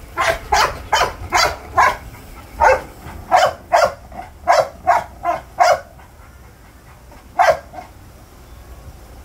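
American Bully puppy barking: about a dozen short barks in quick runs over the first six seconds, then one more bark after a pause of nearly two seconds.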